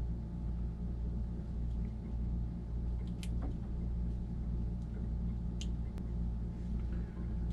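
Steady low machinery hum with a pitched drone. A few light clicks come from handling small wire pins and a plastic connector, about three seconds in and twice more later.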